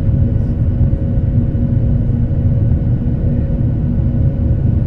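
Cabin noise inside a Boeing 737-800 during the climb-out after takeoff, heard from a seat over the wing: a steady low rumble from the CFM56-7B turbofan engines and the airflow, with a steady hum running through it.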